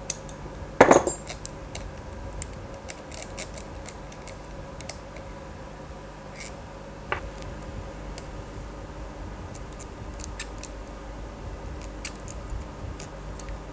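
Metal hand tools clicking and clinking as engine crankcase cap screws are undone with a socket wrench and Allen key socket: a loud metallic clack about a second in, then scattered light ticks.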